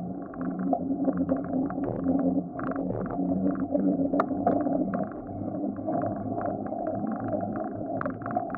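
Wind rumbling over the microphone of a camera on a moving bicycle, with road noise and a patter of small rattles several times a second.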